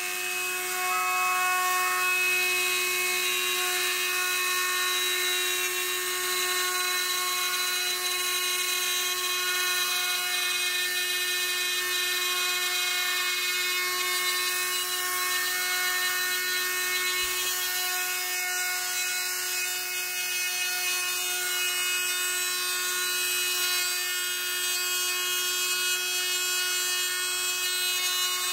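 A cheap handheld rotary tool, mounted as the spindle of a homemade CNC mill, running at high speed with its bit cutting into a block of wood. It makes a steady high whine of several fixed tones.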